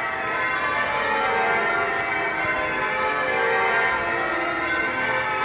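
Church bells ringing changes, many bells sounding in turn and overlapping as they ring on.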